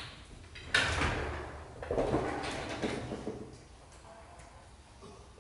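A front door being unlatched and pulled open: a sharp clack about a second in, then a scraping rumble as the door swings, dying away after about three seconds.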